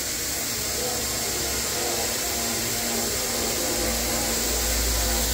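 Steady hiss of a paint spray laying a wet coat of Repaplast Color Finish onto black textured plastic trim. A low hum joins in about four seconds in.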